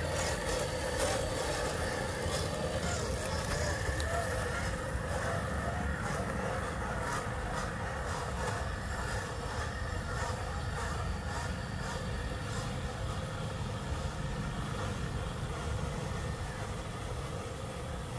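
Scale RC crawler trucks driving over a dirt trail, their small electric motors and gears whirring steadily, with scattered crackles of dry leaves and twigs.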